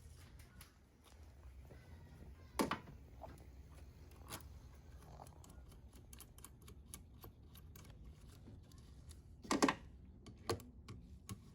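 Scattered light clicks and knocks of tools and engine parts being handled, a few seconds apart, with the loudest near the middle and near the end.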